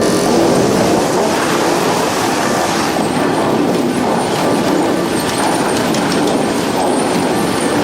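Heavy wood-processing machinery, a chipper or crusher, running and grinding wood: a loud, continuous rattling clatter with crackles.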